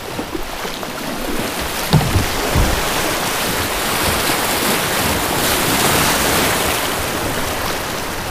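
Rushing whitewater of a flood-high river rapid, a steady loud rush that swells about two-thirds of the way through, with wind buffeting the microphone and a couple of low thumps about two seconds in.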